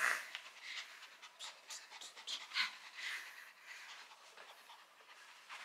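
Small maltipoo dog panting in quick, uneven breaths.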